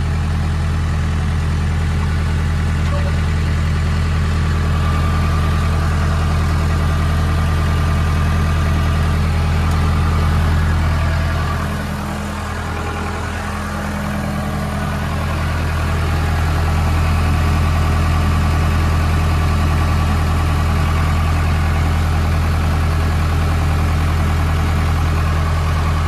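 Case 580L backhoe loader's four-cylinder diesel engine idling steadily, dipping a little in loudness for a few seconds around the middle.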